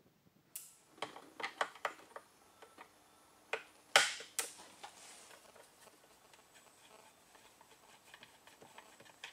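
Small clicks and knocks of a screwdriver working the screws of a car's plastic steering column cowl, with one sharp knock about four seconds in, then only faint ticking.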